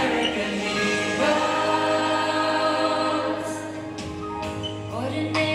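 Children's choir singing a patriotic song over musical accompaniment, with long held notes.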